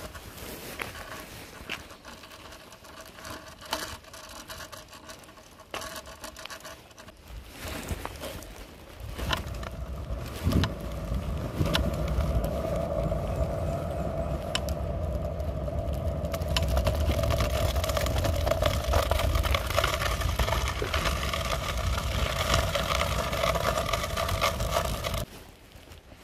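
Aluminium kick scooter's wheels rolling over asphalt, with light clicks and rattles over the rough surface. About nine seconds in it grows into a louder, steady rolling hum over a low rumble, which cuts off suddenly near the end.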